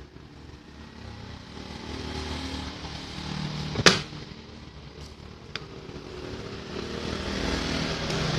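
A vehicle engine running and growing gradually louder, with one sharp loud click about four seconds in and a fainter click a little later.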